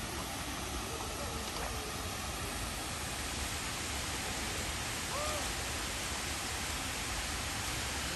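Steady rush of water from a small waterfall cascading into a pond. A short faint chirp sounds about five seconds in.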